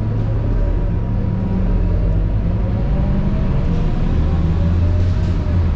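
Scania K230UB city bus's 9.3-litre DC9 diesel and ZF Ecomat 6HP504C automatic gearbox under way, heard from inside the cabin: a steady low engine drone with a whine that rises in pitch as the bus accelerates.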